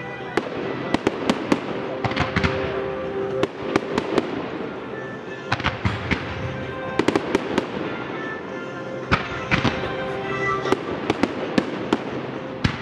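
Aerial fireworks display: shells launching and bursting in quick clusters of sharp bangs and crackles.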